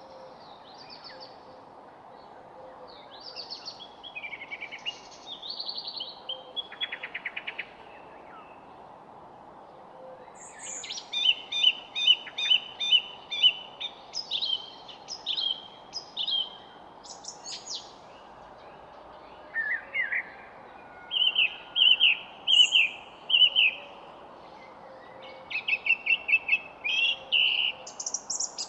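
Songbirds singing in bouts of quick chirps and trills, with phrases of rapidly repeated notes in the middle and near the end, over a steady background hiss.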